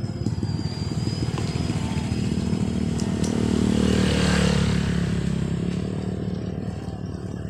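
Small motorcycle engine running while riding, with wind rushing over the microphone; the noise swells and is loudest about four seconds in.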